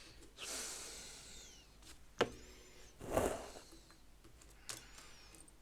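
LEGO pieces being handled and sorted: faint rustling and rummaging, with a couple of sharp plastic clicks.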